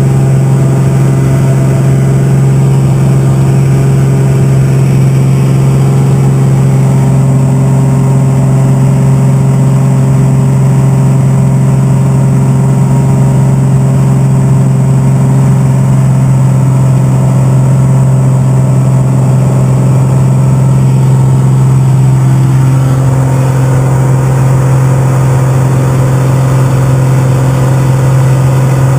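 1955 Cessna 180's 275 hp P. Ponk-modified Continental O-470-50 engine and 86-inch three-bladed propeller running at takeoff and climb power, a loud steady drone heard from inside the cabin as the floatplane, at full gross weight, climbs away from the lake. The tone shifts slightly about three quarters of the way through.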